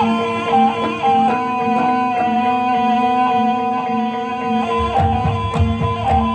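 Instrumental music: a sustained, wavering melody line over a steady drone, with low drum beats coming in about five seconds in.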